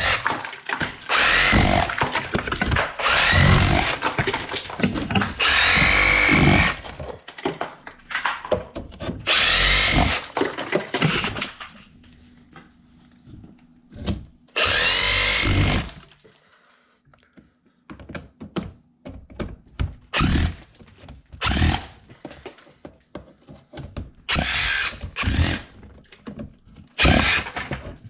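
A 1-9/16 inch rotary hammer chipping ice out of a refrigerator ice maker. It runs in bursts of a few seconds with pauses in the first half, then in many short, quick pulses in the second half.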